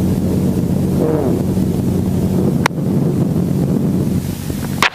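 Helicopter running: a steady low drone from its engine and rotor, with wind rushing on the microphone and a single sharp click near the middle.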